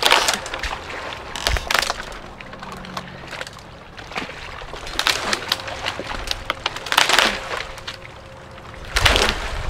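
Wood of a partly broken tree trunk cracking and splintering as it is pulled down and wrenched off by hand, with several sharp snaps spread through and the brushing of bare branches.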